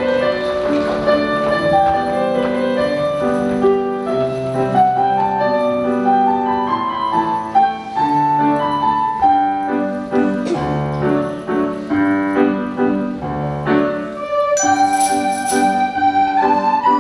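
Recorder ensemble playing a classical arrangement in several parts, held notes over a low bass line. A bright percussion shake joins near the end.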